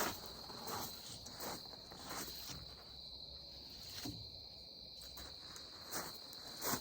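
Crickets chirring steadily, with a few faint scuffs.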